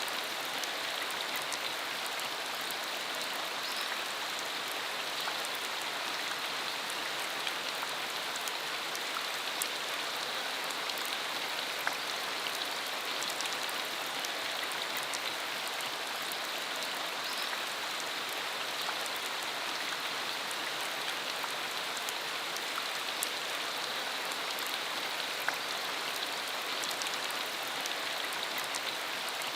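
Steady rain falling, a dense even hiss with many small sharp drop hits throughout.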